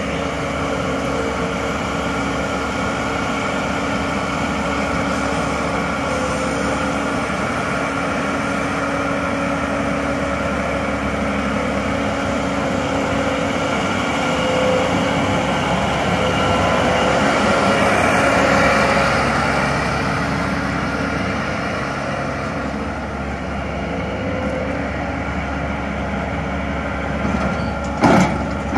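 New Holland 2550 self-propelled swather's engine running steadily as the machine drives slowly, swelling louder for a few seconds in the middle. A sharp clunk comes near the end.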